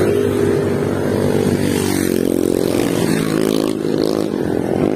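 A motor vehicle engine running close by, its pitch dipping and rising around the middle, over steady road and wind noise.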